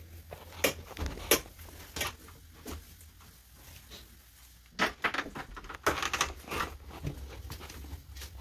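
Floor mopping with a wet mop and bucket: irregular light knocks and clicks, about one every two-thirds of a second at first, then a quieter stretch and another cluster of knocks, over a low steady hum.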